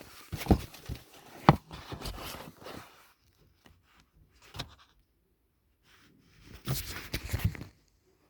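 Handling noise: a few separate knocks and rustles as objects are picked up and set down, then a denser run of knocks and rustling near the end.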